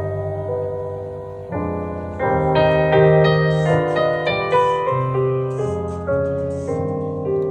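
Background music: piano playing sustained chords with a slow melody.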